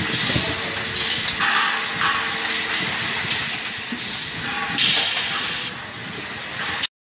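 Automatic LPG cylinder filling line running: repeated short hisses, five or so a second or so apart, over the steady rattle of the cylinder chain conveyor. The sound cuts off abruptly near the end.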